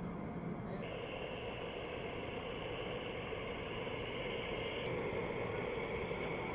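Steady, distant rushing of a Boeing 747's four jet engines on approach. The character of the noise shifts abruptly about a second in and again near five seconds, where the footage changes.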